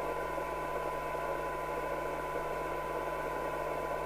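Midland 76-900 CB receiver's audio output: a steady 1 kHz test tone half-buried in hiss, from a weak signal-generator signal set for a low SINAD reading while its IF coils are peaked for best receive sensitivity. A low mains-like hum sits underneath.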